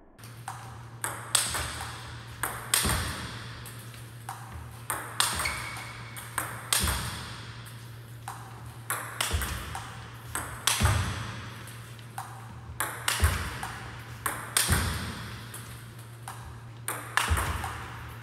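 Table tennis ball struck hard by rubber paddles and bouncing on the table in a forehand smash drill: sharp clicks that come in quick groups every second or two and echo in the hall. A steady low hum runs underneath.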